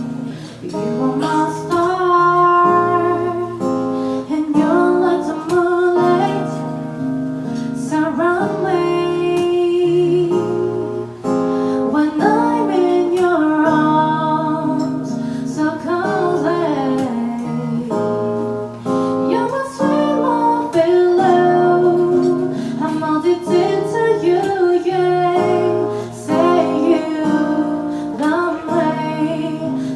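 A woman singing a song over plucked guitar accompaniment.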